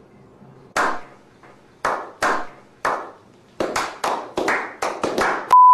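Hand clapping from a small group of men: slow, spaced claps that quicken into faster clapping about three and a half seconds in. Near the end a steady high electronic beep starts and holds.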